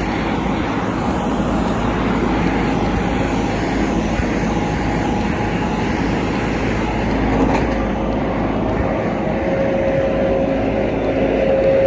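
Loud, steady urban vehicle noise: a continuous rumble and hiss, with a steady engine tone coming up over the last few seconds.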